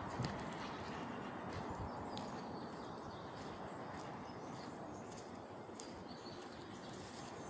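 Small birds chirping in short, scattered high calls over a steady background hiss.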